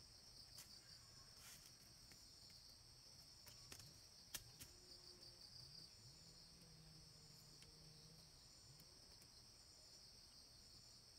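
Faint, steady chorus of forest insects: a continuous high buzz with a fainter, evenly pulsing trill above it. A few light clicks fall in the first half, the sharpest about four seconds in.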